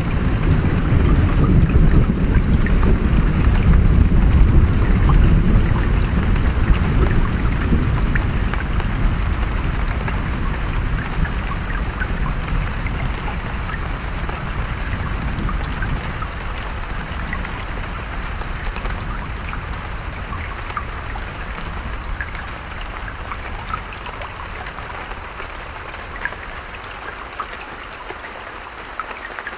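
Steady rain with a low rumble of thunder that is strongest in the first several seconds and dies away gradually, leaving rain alone by the end.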